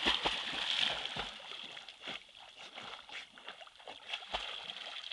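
American Staffordshire terrier splashing hard in a river and then paddling. The splashing is loudest in the first second or so, then settles to quieter sloshing as the dog swims.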